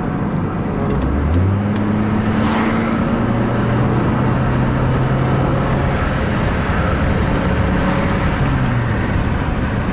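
Toyota Corona Premio's 7A-FE lean-burn four-cylinder engine accelerating hard at full throttle, heard from inside the cabin with road noise. The engine note rises about a second in and then holds steady as the car pulls well, even though its failing fuel pump is letting the fuel pressure sag.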